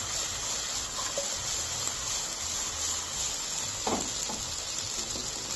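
Marinated chicken pieces frying in butter in a pan, a steady sizzling hiss now that the water from the marinade has cooked off.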